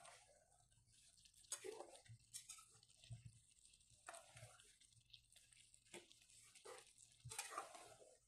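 Faint wet squelching and scraping from a metal spoon stirring thick meat curry in a pan, in several separate strokes.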